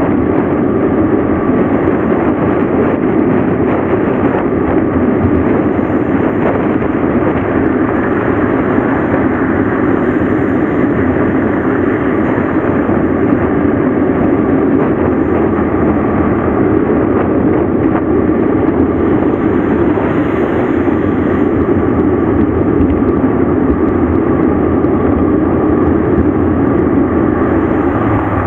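Loud, steady rush of wind and tyre noise picked up by a camera riding on a mountain bike descending a road, unbroken throughout.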